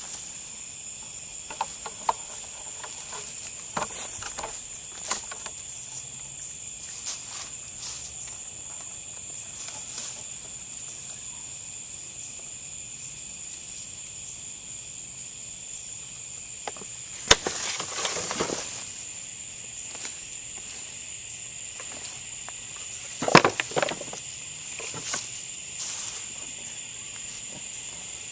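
Steady, high-pitched chirring of crickets or similar insects. Scattered clicks and rustling break in, with two louder bursts of rustling and knocking, one about two thirds of the way in and another a few seconds later.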